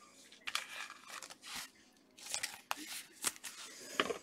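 Trading cards and plastic pack wrappers being handled on a table: short, irregular scrapes, rustles and clicks.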